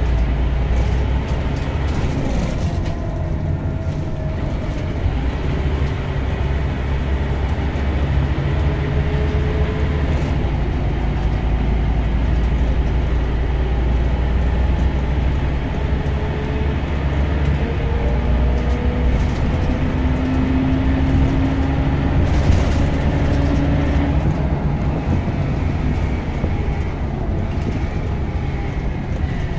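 Interior sound of a Scania K230UB OmniLink bus on the move: its rear-mounted diesel engine gives a steady low drone with road noise. A whine rises in pitch a couple of times, and there is a single short knock a little past two-thirds of the way through.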